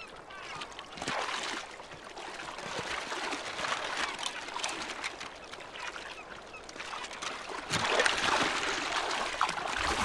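Polar bears' paws crunching and crackling through thin, slushy new sea ice, with slush and water sloshing. A louder crunch near the end as the ice gives way under a bear.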